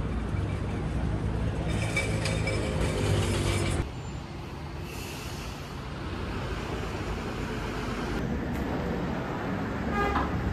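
City street traffic, with a heavy vehicle's engine running close by for about the first four seconds, then quieter traffic noise after an abrupt drop.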